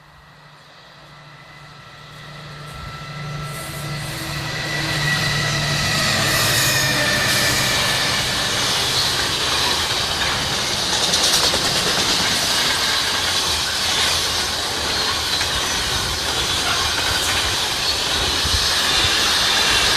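A locomotive-hauled train approaching and passing: the sound grows steadily over the first five or six seconds, then holds as a loud, steady run of wheels on rail with thin squealing tones.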